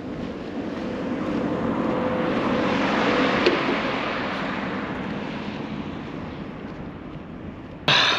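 A road vehicle passing by, its noise building to a peak about three seconds in and then fading away. A sudden, louder sound cuts in just before the end.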